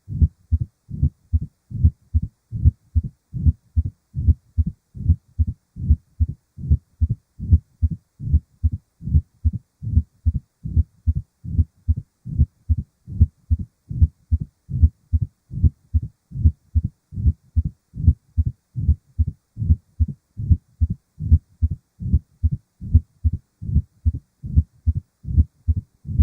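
Recorded heart sounds: a steady, regular run of low-pitched beats. The recording is presented as an abnormal heart sound.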